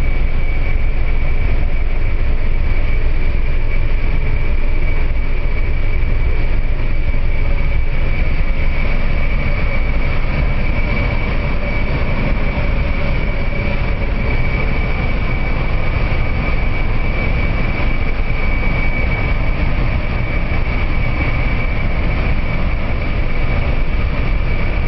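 Steady aircraft noise in flight: a constant low rumble with a steady high whine over it, unchanging throughout.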